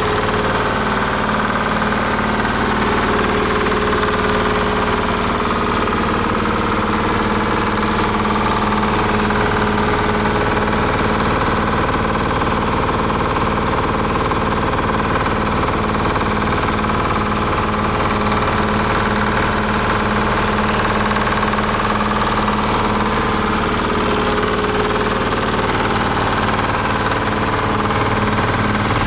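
Detroit Diesel 1-71 single-cylinder two-stroke diesel engine running steadily with an even knock, its speed unchanging.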